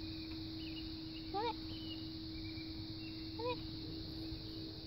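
Steady outdoor insect drone with a constant low hum under it and faint high chirps, broken twice by a short rising voice-like call, about one and a half and three and a half seconds in.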